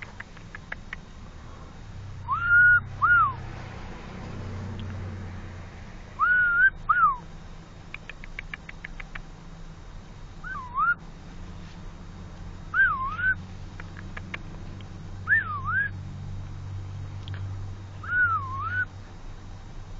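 Cockatoo whistling a repeated two-note call, each call a pair of rising-and-falling whistled glides, coming about every two to three seconds.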